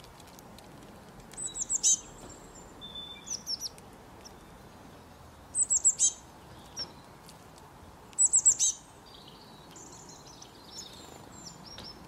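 A small songbird calling: three short bursts of rapid, high, falling notes, each about half a second long and a few seconds apart, with a few softer chirps between them over a faint outdoor hiss.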